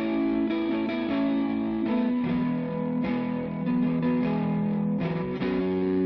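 Background music: a guitar-led song intro without vocals, its chords changing about two seconds in and again about five seconds in.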